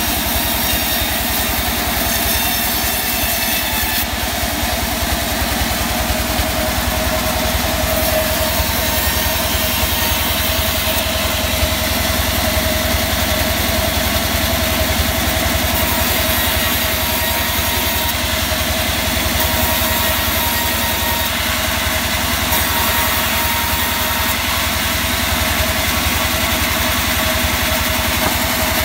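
Vertical band sawmill running steadily as its blade rips a mahogany log lengthwise into slabs. It gives a continuous low throb and a steady whine that do not let up.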